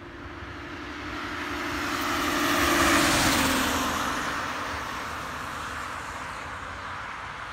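A car passing on the road: tyre and engine noise builds to a peak about three seconds in, its pitch dropping as it goes by, then fades away.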